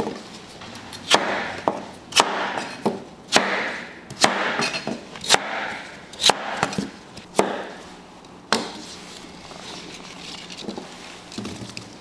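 A series of sharp knocks about once a second, each followed by a brief scraping rustle, stopping about eight and a half seconds in.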